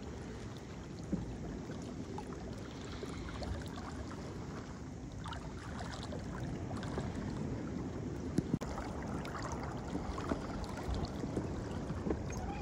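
Water lapping against a kayak's hull as it glides over calm sea: a steady low rush with small splashes, and two sharp knocks a little past halfway.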